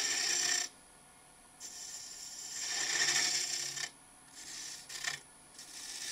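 A turning tool cuts a tenon on a dry wood blank spinning on a lathe, making a scraping hiss. It comes in about four passes with short breaks between them.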